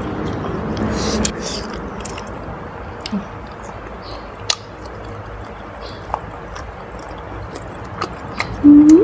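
Close-up mouth sounds of someone chewing a piece of crispy salt-roasted pork belly, with scattered sharp crunches and smacks. Near the end comes a short, loud hummed "mm" that rises in pitch.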